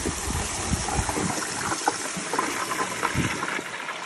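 Kohler Kingston flushometer toilet flushing: water rushing through the bowl with low gurgling as a rag load goes down the drain in one flush. The gurgling thins out about halfway through and the rush slowly fades as the bowl refills.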